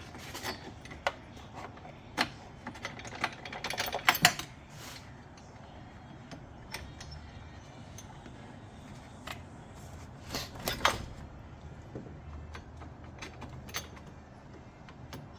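Irregular metallic clicks and clinks from hand tools and the steel battery hold-down being worked loose, in short clusters about two to four seconds in and again around ten seconds in.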